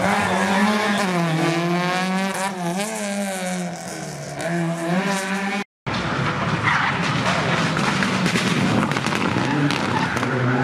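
Rally car engines at full throttle passing by. The first engine climbs and dips in pitch through quick gear changes and fades as it moves away. After a brief dropout a second rally car comes through, loud and rough-edged.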